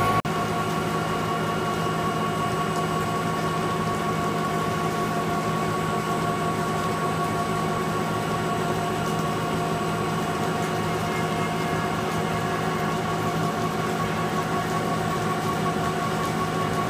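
TOS WD-130 CNC floor-type horizontal boring mill running as its spindle cuts a large steel weldment, giving a steady whine over a low hum and a hiss.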